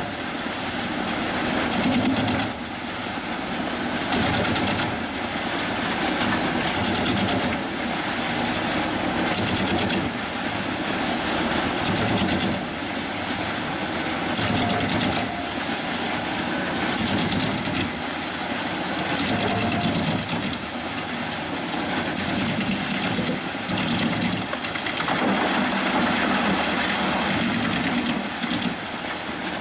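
Pezzolato PTH 1000/1000 G drum wood chipper running off the power take-off of a 360 hp New Holland tractor: a steady engine and drum noise with irregular clattering, its loudness rising and falling every few seconds.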